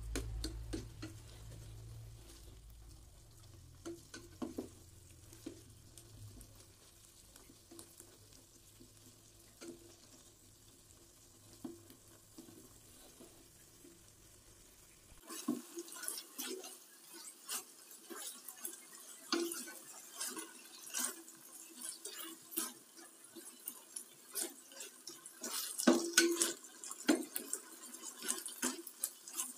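Spatula stirring shredded chicken in a metal cooking pot, with scrapes and clinks against the pot. The strokes are sparse over a low hum in the first half, then come much more often and louder from about halfway.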